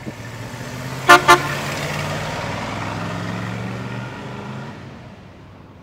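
1967 Ford C550 cab-over truck's 292 Y-block V8 running as it drives past, its note growing louder and then fading as it pulls away. About a second in, the horn gives two short, loud toots.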